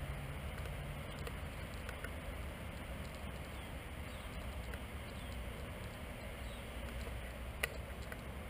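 Steady hum and low rumble of road traffic from a nearby main road, with one sharp click near the end.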